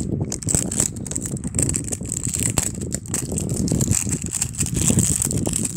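Crinkling, crackling handling noise from the plastic-wrapped shell of an L.O.L. Surprise ball being turned over and unwrapped by hand, with many small irregular clicks.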